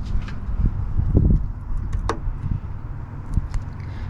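Scattered light clicks and knocks as a machined door handle and its parts are worked back into a truck door by hand, over a steady low rumble.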